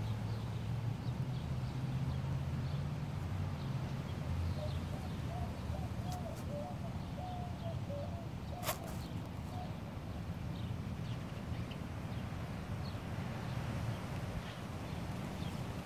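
Outdoor background with a steady low rumble, a run of short animal calls in the middle, and a single sharp click about halfway through.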